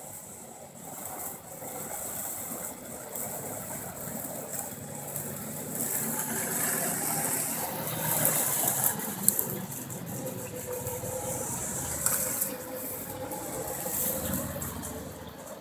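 An off-road vehicle's engine running at a distance, fairly faint and steady, with a few sharp clicks.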